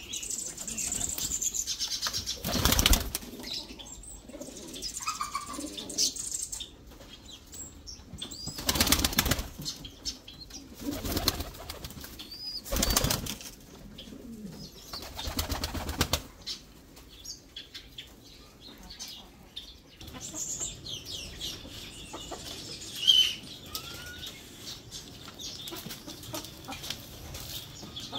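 Domestic pigeons flapping their wings in a loft: four short loud bursts of wing flaps, with occasional high bird calls in between.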